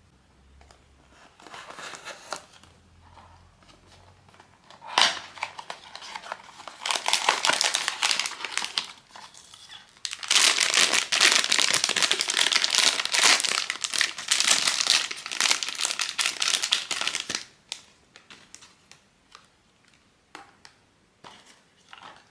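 Blind-box packaging handled and opened by hand: crinkling and rustling of wrapping with some tearing, in short bursts at first and then in a long, dense stretch from about ten to seventeen seconds in. A few light clicks follow near the end.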